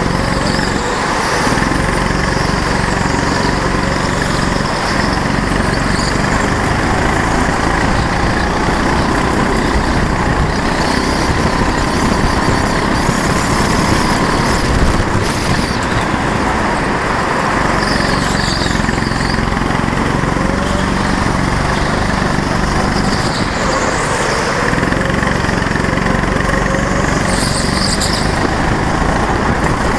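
Go-kart engine running steadily as the kart laps the track, heard from a camera mounted on the kart itself.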